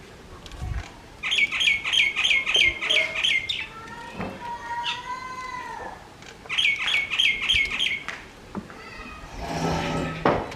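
A bird calling in two quick runs of sharp, high chirps, about four a second, with a lower, drawn-out gliding call between the runs and a brief noisy rush near the end.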